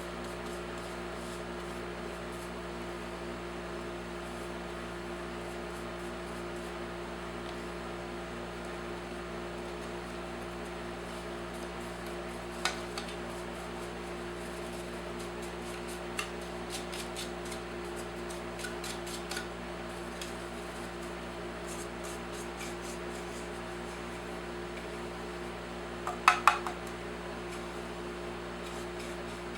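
Plastic parts of a Bissell upright vacuum cleaner being handled during cleaning: scattered light clicks, then a quick cluster of louder knocks near the end, over a steady background hum.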